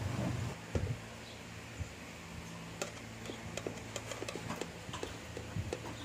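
Scattered light clicks and taps of a motorcycle's chrome headlight shell and its mounting hardware being handled and fitted by hand, more frequent in the second half, over a low steady hum.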